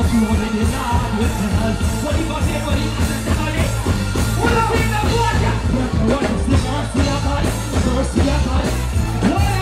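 Live dancehall performance through a concert sound system: a deejay chanting into a microphone over a heavy, pulsing bass line.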